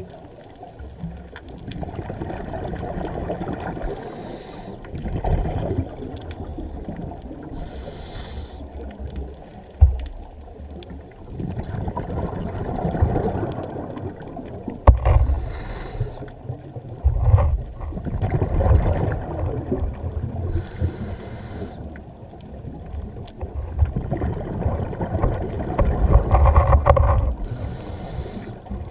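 Scuba diver breathing through a regulator underwater: a low rushing inhale alternating with a burst of exhaled bubbles, five bubble bursts about every four to seven seconds.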